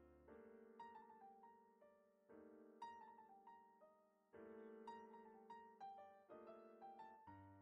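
Quiet background piano music: a new chord about every two seconds with a slow melody of single notes above, each note fading away after it is struck.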